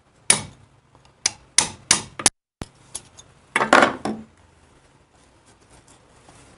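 Hammer blows on a punch knocking the drilled-off brass lining rivets out of a 1948 Harley-Davidson Panhead clutch hub: about six sharp separate strikes, then a quicker cluster of strikes about three and a half seconds in.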